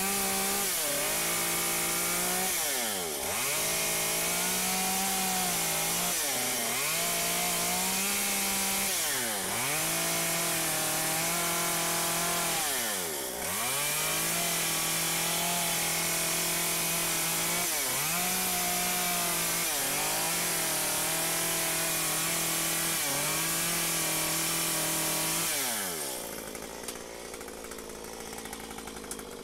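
Stihl MS 193 C two-stroke chainsaw running at high revs while carving a small block of wood. Its pitch dips sharply and climbs back every few seconds, then it drops to a quieter idle near the end.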